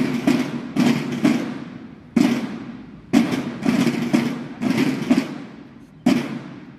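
A school drum corps (banda de guerra) beating marching drums for the flag's farewell: a run of heavy drum strikes in an uneven march rhythm, each ringing out and fading before the next.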